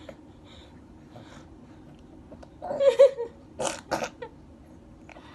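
A baby's breathy vocal noise about halfway through, followed by two short, sharp puffs of breath in quick succession.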